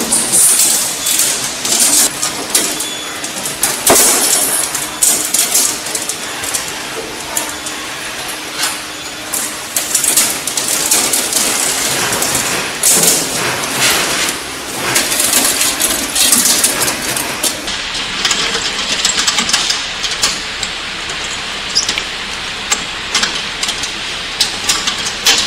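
Steel roller chain rattling and clinking as it is fed link by link over the sprockets and along the track of a Z-type bucket elevator, with scattered metallic knocks.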